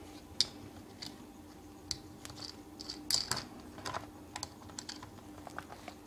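Faint, irregular light clicks and taps as a metal NP-F battery adapter plate is handled and screwed onto the underside of a camera.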